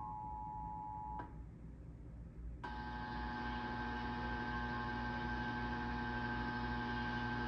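Emergency Alert System attention signal: the steady two-tone alert (853 Hz and 960 Hz together) cuts off about a second in. After a short gap the alert tone starts again, muffled and with a steady hum under it, a repeated and longer attention signal on a faulty test.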